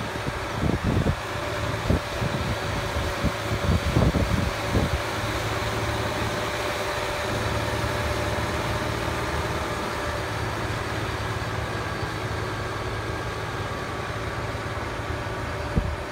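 Massey Ferguson 9500 tractor's diesel engine running steadily while ploughing, with a few irregular knocks in the first five seconds.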